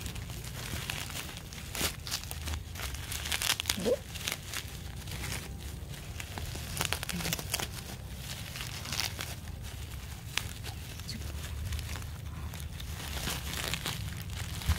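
Bubble wrap crinkling and rustling as hands pull it open and peel it off a candle: a dense, irregular run of crackles.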